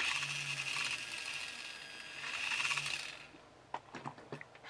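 Small electric drill boring a hole through a toy car's plastic chassis: a high whine that starts suddenly and runs for about three seconds, easing off and picking up again before it stops. Then a few light clicks and taps.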